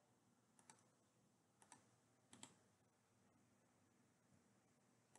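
Three faint computer mouse clicks, about a second apart, each a quick press and release, in otherwise near silence.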